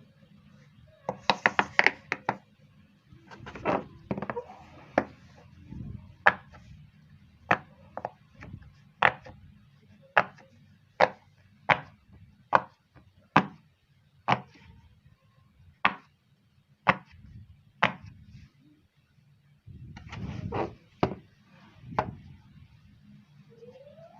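Silicone pop-it fidget toy, its bubbles pressed in one by one, each giving a short sharp pop. A quick run of pops comes about a second in, then single pops at a steady pace of one or two a second, and another quick run near the end.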